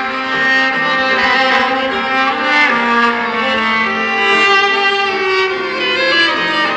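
Samsung Galaxy A55 ringtone playing: a continuous melody of sustained, layered notes with a bowed-string sound like violins.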